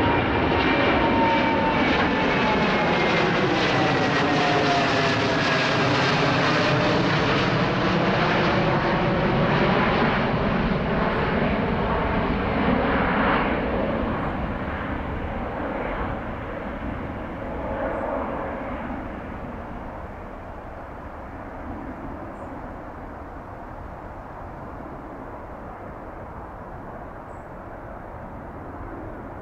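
Boeing 787-10 airliner's twin jet engines at climb power as it passes overhead: loud steady jet noise with a whining tone falling in pitch as it goes by, then fading away as the aircraft climbs off into the distance.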